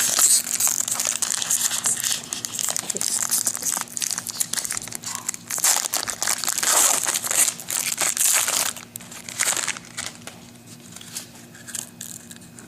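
Trading-card pack wrapper crinkling as it is handled, a dense crackle that is loud for about nine seconds and then dies down to faint rustles.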